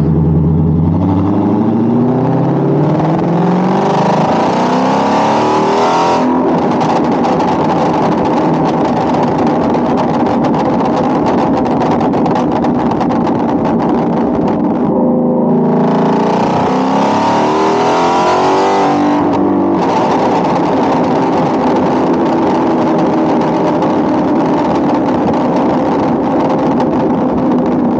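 Ford Shelby GT350's flat-plane-crank Voodoo V8 accelerating, its pitch climbing for about six seconds, then off the throttle with a dense run of exhaust pops and crackles. It pulls and climbs again about halfway through, then crackles once more.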